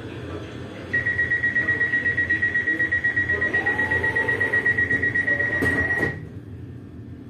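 Class 385 train's door-closing warning beeper: a loud, fast-pulsed high beep, about seven pulses a second, lasting about five seconds, ending with a couple of knocks as the doors close.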